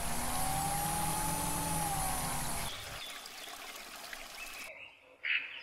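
Water pouring and trickling from a miniature DC-motor-driven water pump model, with the small motor's wavering whine and hum until it cuts off a little under three seconds in. A bird chirps at the very end.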